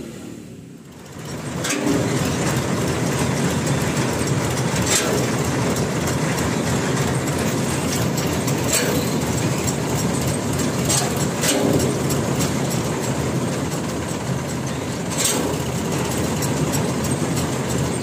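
Tractor engine of a Massey Ferguson 7250 DI running steadily with its mounted mini combine harvester. The steady machine noise comes in about a second and a half in, with a few sharp clicks over it.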